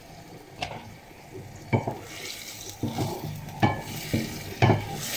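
Spatula stirring chicken in sauce in a frying pan, knocking against the pan about five times, over the sizzle of the cooking food.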